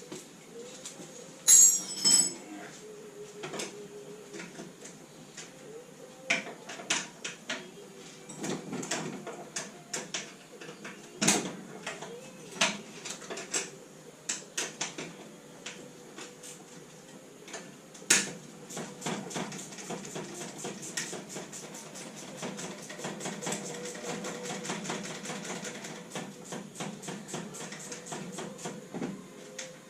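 Hand tools clinking and knocking against metal parts while a classic Mini engine is being taken out, with two loud metallic clanks about two seconds in and a long run of quick small clicks in the second half.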